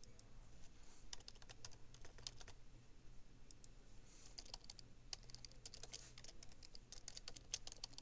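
Faint computer keyboard typing: runs of quick keystrokes with short pauses between them.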